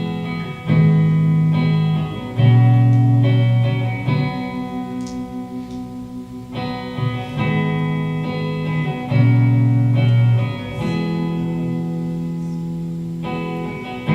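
Live worship band playing an instrumental guitar intro: sustained, effects-laden electric guitar chords over low bass notes that change every second or two.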